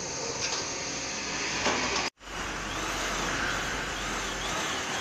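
Steady outdoor background noise, a hiss-like haze with no clear single source, broken by a brief dropout about two seconds in.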